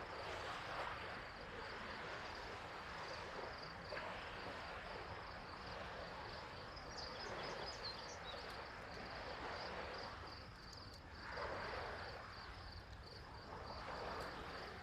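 Outdoor summer ambience: insects chirping in a steady, fast pulsing high trill, over a soft rushing wash that swells a few times, around eleven seconds in and again near the end.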